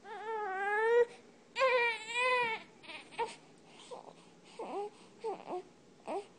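Infant crying: two long cries, each about a second, then a string of short, quieter cries.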